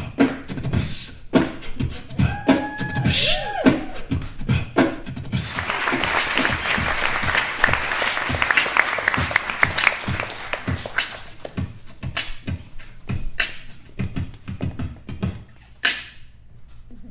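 Beatboxing: a steady beat of low thumps and sharp mouth clicks, with gliding hummed tones a couple of seconds in and a stretch of fast, hissy clicking in the middle, thinning out near the end.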